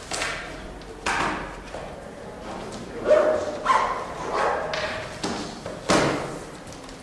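A series of short, sudden sounds from children in a classroom: brief voice-like calls mixed with thuds, about seven in a few seconds.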